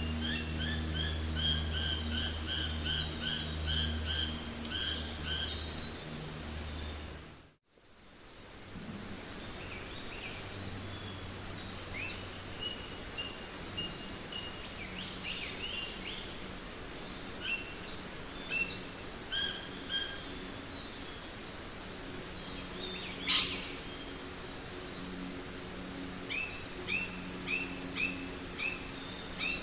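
Wild birds chirping and calling in repeated quick phrases over a steady background hiss of forest ambience. For the first seven seconds a low steady drone sits beneath them; it fades out to a brief moment of silence, and the birds and hiss then resume, with one sharp, loud call near the middle.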